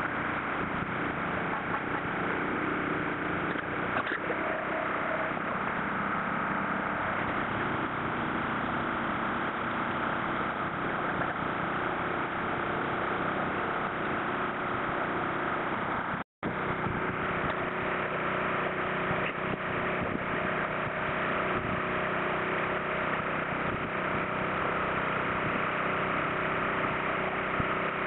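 An engine running steadily, mixed with water gushing out of a pump's discharge hose as the boat is pumped out. The audio is sped up, and it cuts out for an instant a little past halfway.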